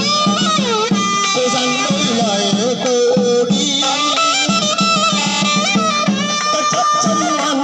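Traditional Vietnamese funeral band music: a wind instrument plays a melody with bending, ornamented notes over steady drum beats.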